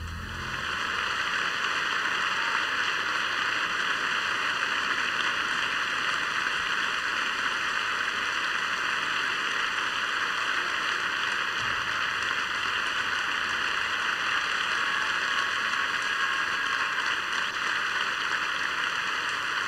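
Concert audience applauding, building up over the first second and then holding steady.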